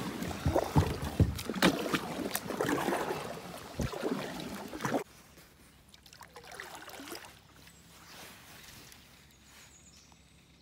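Kayak paddle strokes splashing in the water, mixed with knocks and clatter, for about five seconds. The sound then stops suddenly, leaving only faint water sounds as the kayak glides.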